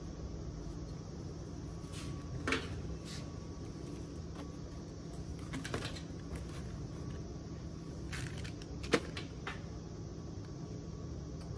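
Handling noise from a Suzuki M109R fuel pump assembly being worked into the fuel tank opening: a few scattered sharp clicks and knocks, the loudest about nine seconds in, over a steady low hum.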